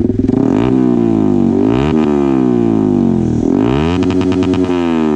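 A Yamaha R15's single-cylinder engine is revved at a standstill through an aftermarket SC Project slip-on exhaust with no dB killer fitted, and is very loud. There are three throttle blips: the pitch climbs and falls away each time, and the third is the highest and is held briefly before dropping back.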